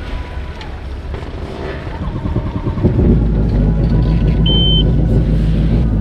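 Jet ski engine idling with a steady low rumble that gets louder about three seconds in. A short high beep sounds once shortly after.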